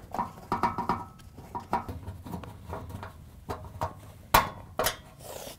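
Torx driver backing screws out of a washer's lower access panel: irregular small metallic clicks, taps and scrapes, with two sharp clicks about half a second apart near the end.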